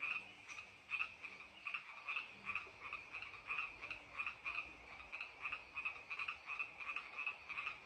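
A chorus of frogs calling at a pond: many short, overlapping croaks, a few a second, repeating steadily.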